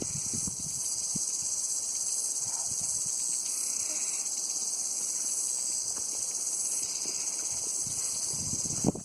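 Steady, high-pitched chorus of insects chirring without a break, with a few low crunching sounds at the start and a sharp knock just before the end.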